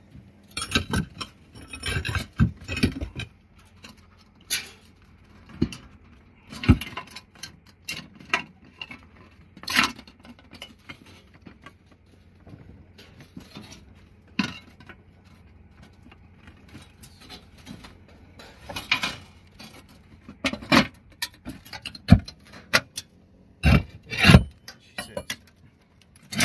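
Thin aluminum tile-replacement flashing scraping and rattling against roof tiles as it is slid and shifted into place under them, with scattered sharp knocks and clicks between quieter stretches.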